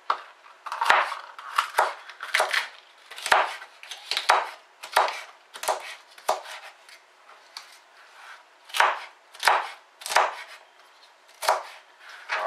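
Kitchen knife chopping raw cabbage leaves on a plastic chopping board: a crisp cut and tap about once a second, pausing for a couple of seconds in the middle.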